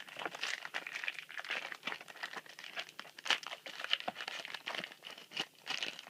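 Foil booster pack wrapper crinkling in quick, irregular crackles as a trading card pack is handled and opened.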